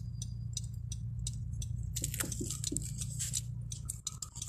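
Steady low rumble of a car driving, heard inside the cabin, with scattered clicks and rubbing from the phone being handled against the windshield and dashboard.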